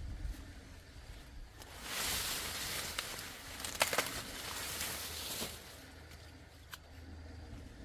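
Rustling that swells for a few seconds in the middle, with a few sharp snaps or clicks partway through.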